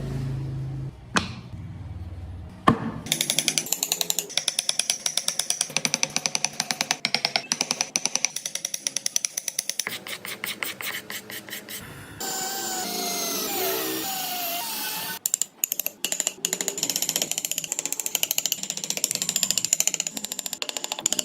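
Woodworking tools on wood: long runs of fast, evenly repeated strokes, broken about halfway through by a few seconds of a power tool running with a wavering pitch.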